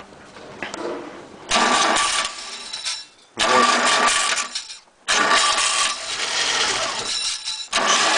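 VAZ 2109 engine being cranked by its starter motor in four bursts of about a second and a half each, with short breaks between as the key is turned again.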